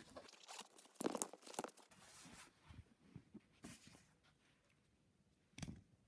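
Faint handling noises: a soft fabric case rustled and opened by hand, with a cluster of short rustling scrapes about a second in and another brief one near the end.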